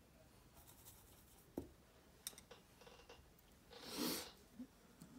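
Fine paintbrush working on an icon panel: faint scratchy strokes and small clicks, a sharper click about one and a half seconds in, and a short, louder soft rush of noise about four seconds in.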